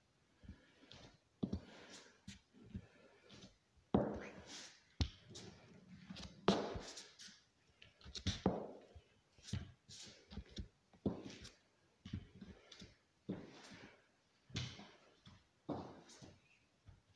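Slow, uneven walking on crutches across a bare wooden floor: the crutch tips, a high-heeled pump and a sandal knock and thud on the boards one after another, with a few louder knocks along the way.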